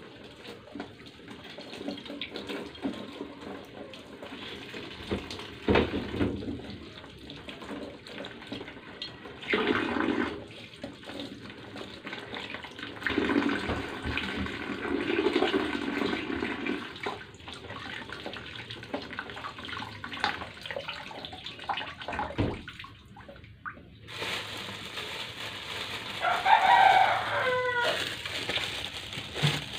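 Tap water running from a hose into a pot of soapy water, with splashing and sloshing as fruits are scrubbed and rinsed in it by hand. Near the end a short pitched call with falling pitch sounds.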